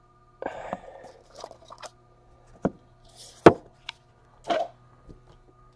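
Trading cards in hard plastic holders being handled: short rustles and several sharp clicks and taps, the loudest about three and a half seconds in, over a faint steady hum.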